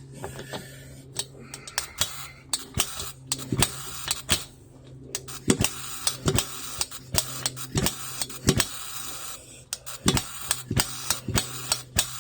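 Barco H-6 gasoline jackhammer running unevenly: sharp bangs come irregularly, one or two a second with gaps between, over a steady low hum. The owner puts the uneven running down to the hammer not picking up enough fuel.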